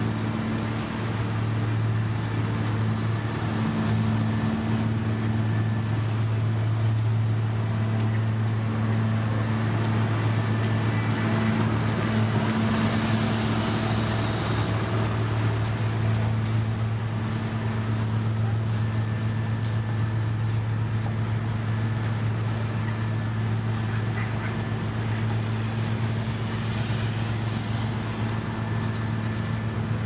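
Heavy diesel engines of a dump truck and asphalt paver running steadily while base-course aggregate is tipped into the paver: a constant low hum with a rushing noise that swells a little about halfway through.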